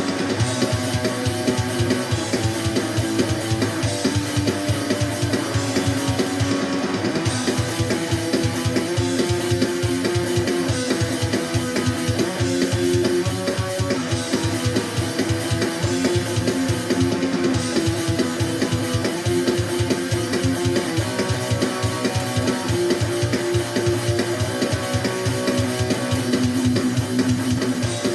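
Rough recording of a band jam: strummed guitar over a drum kit keeping a steady beat.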